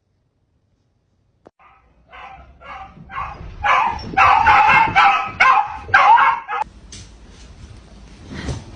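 A dog barking repeatedly, a little over two barks a second, starting about a second and a half in, getting louder partway through and stopping about two-thirds of the way in.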